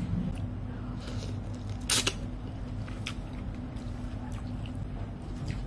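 Someone eating instant noodle soup: chewing and mouth sounds, with sharp clinks of a metal fork and spoon against a ceramic bowl, the loudest about two seconds in. A steady low hum runs underneath.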